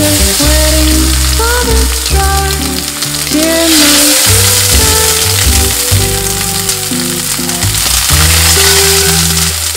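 Sliced pork sizzling in a hot frying pan with onions as it is stir-fried. The sizzle starts as the meat goes in and is loudest in the middle, with background music playing under it.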